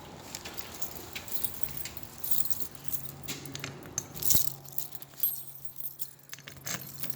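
A large ring of keys jangling and clinking in irregular bursts, over a steady low hum.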